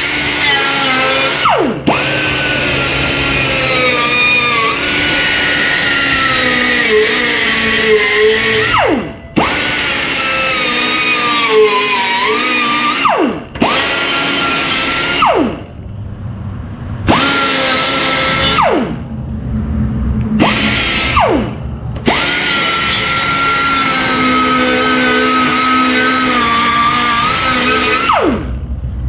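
Handheld power tool motor triggered repeatedly in runs of one to seven seconds, its whine spinning up sharply, dipping in pitch under load, and winding down quickly each time it is released, typical of dressing down a repair weld on a hood hinge.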